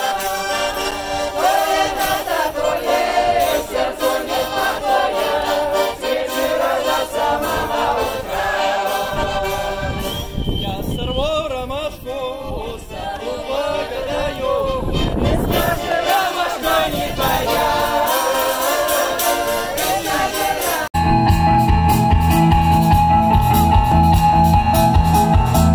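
Group of voices singing a folk song together to a button accordion. About twenty seconds in it cuts to an amplified band on an outdoor stage playing louder music with a steady drum beat and guitar.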